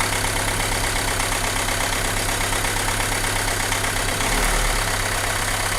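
Renault Mégane II engine idling steadily with a rough, vibrating idle, the fault being traced by cutting one cylinder at a time. A brief low rumble swells about four and a half seconds in.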